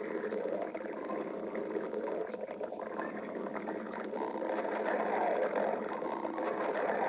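A person's stomach growling: continuous rumbling and gurgling, growing a little louder about four seconds in, with a few faint clicks.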